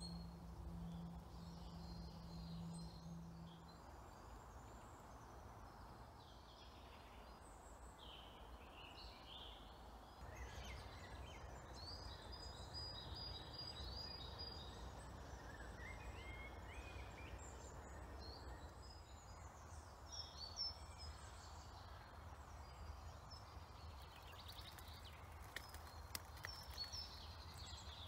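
Faint woodland birdsong: several birds calling and singing in short phrases, with a quick run of high notes about 13 seconds in, over a steady low rumble of wind. A faint low hum is heard for the first few seconds.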